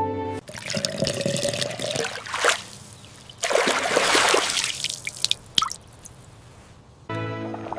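Liquid pouring and splashing in a few short spells, one with a faintly rising tone like a vessel filling, followed by a few light clicks.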